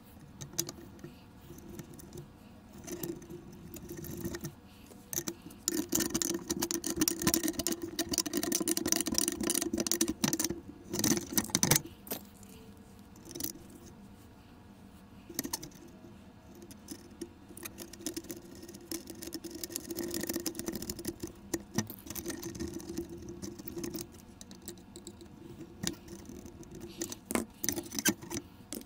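Hands twisting and pulling on the wiring and fuse inside an opened battery charger: irregular metallic clicks, rattles and rustling, coming in busy spells.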